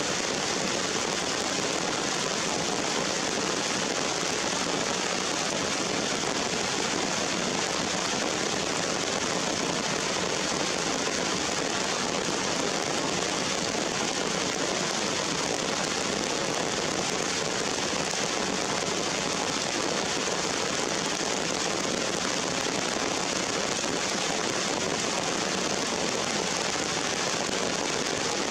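Steady rain falling on leaves and wet rocks, an even hiss of many drops with no break.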